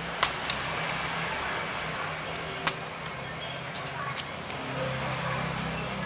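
Several sharp plastic clicks and snaps as the white plastic shell of a USB-C to 3.5 mm headphone adapter is prised open by hand, over a steady low background hum.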